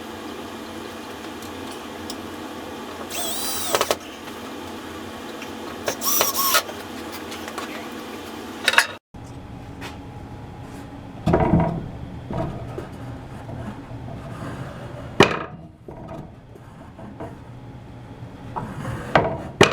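Woodworking shop sounds: a steady machine hum with two short power-tool bursts, then, after a cut, scattered wooden knocks and clunks of parts being handled and fitted.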